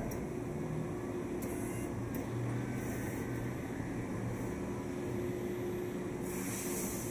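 Steady hum of machine-shop equipment with a steady tone in it. A hiss comes in about six seconds in.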